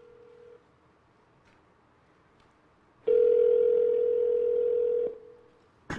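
Ringback tone of an outgoing call on the original iPhone, ringing while the call waits to be answered. The faint tail of one ring ends just after the start, then one steady ring of about two seconds comes about three seconds in.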